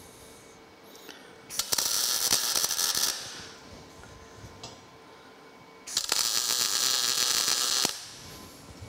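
Two tack welds with a MIG welder: a crackling, hissing arc about a second and a half in, lasting about a second and a half, and a second one about six seconds in, lasting about two seconds. The arcs are tacking round steel feet onto the steel legs of a stand.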